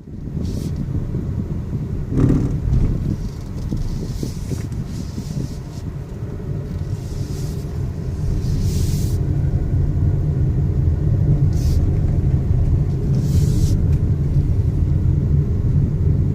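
Car driving with a dense low rumble and grinding from the running gear, which the driver thinks may come from a wheel. A couple of brief hissing swells pass over it.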